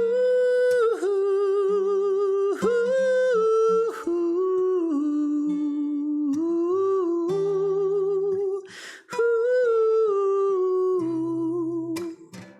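Male voice humming a wordless melody in long held notes with vibrato, pausing briefly for breath between phrases, over soft acoustic guitar notes.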